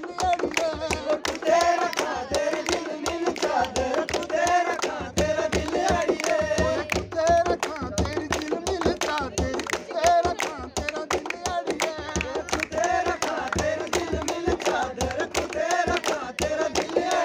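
A man singing a Dogri folk song in full voice, with a quick, steady beat of hand claps, about three or four a second, keeping time under the melody.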